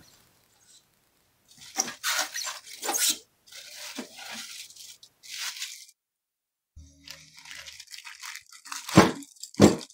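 Plastic parts bags crinkling and rustling as gloved hands handle them, with two sharp thumps near the end as the bagged hardware is handled on the bench.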